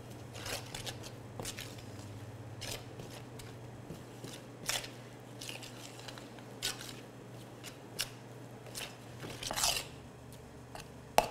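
Metal spoon stirring stiff wholemeal bread dough in a stainless steel bowl: irregular scrapes and clinks of the spoon against the bowl, with a steady low hum underneath.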